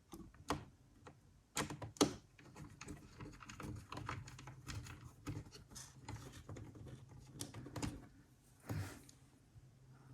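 Irregular small clicks and taps of a precision screwdriver and screws against a laptop's plastic bottom case as its screws are driven back in. A short scratchy sound comes near the end.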